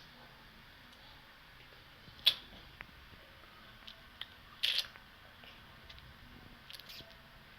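A few short, sharp crunches and clicks: a loud one about two seconds in, a longer crackly one near the middle, and a quick cluster near the end.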